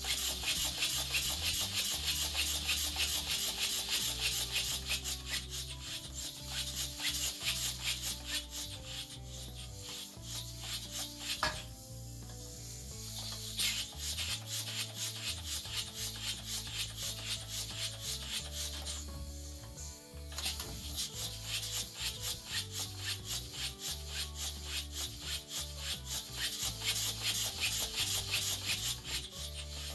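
Homemade three-cylinder steam engine running fast, its exhaust hissing in rapid, even pulses; the pulsing eases off briefly twice, about twelve and twenty seconds in. Background music plays underneath.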